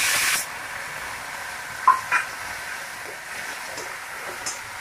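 Chopped tomatoes and onions sizzling in hot oil in a kadhai: a loud hiss that dies down within the first half second to a steady quieter sizzle. A metal spatula stirs and clinks against the pan a couple of times about two seconds in.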